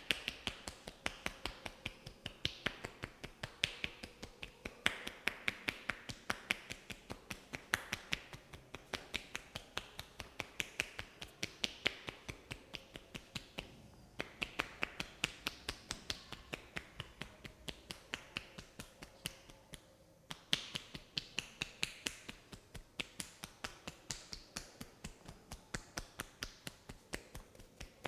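Hands tapping on a head in a percussive head massage: sharp taps about three a second in a steady rhythm, with two brief pauses, one about halfway through and one about two-thirds through.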